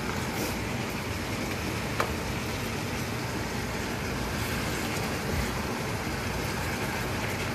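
Vegetables sizzling in a frying pan as they are stirred with a spatula, a steady hiss with one sharp tap of the spatula on the pan about two seconds in.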